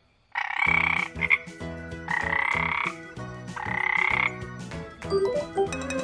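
Frog croaking three times, each croak drawn out for most of a second with short pauses between.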